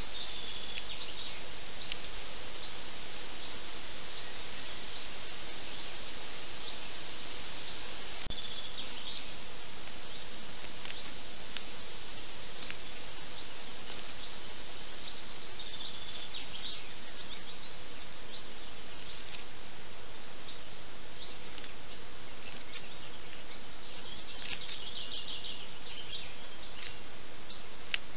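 Steady outdoor hiss with faint, short high chirps now and then, clustered in places, and a few soft ticks.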